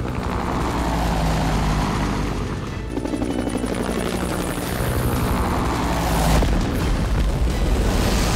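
Cartoon rescue helicopter's rotor chopping steadily with a deep low rumble beneath it, over background music.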